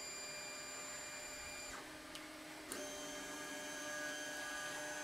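3D printer's stepper motors whining through a series of moves as a print starts, the whine holding steady tones that jump to new pitches twice, with a faint click at each change.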